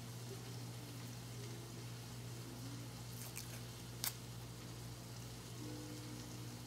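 Faint dry crackling of papery skin being peeled off a red onion by hand over a steady low hum, with one sharp click about four seconds in.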